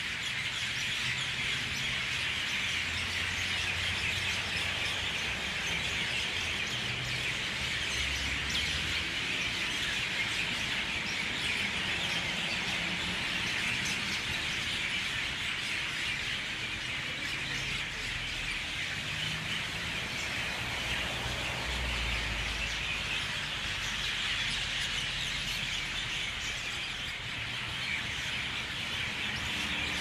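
Dawn chorus of a large flock of mynas at their roost trees, many birds calling at once in a dense, unbroken chatter.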